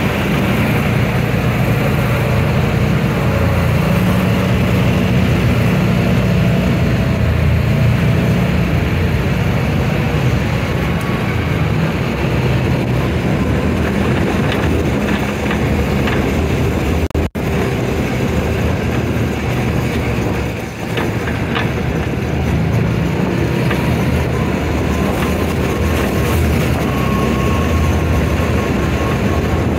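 Side-by-side off-road vehicle (UTV) driving steadily on a wet gravel road: its engine drones low and even under a constant wash of road and wind noise. The sound cuts out for an instant a little past halfway.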